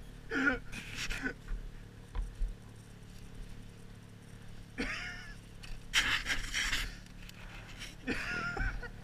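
A rider panting hard, with short bursts of voice, over a steady low hum from a dirt bike engine idling.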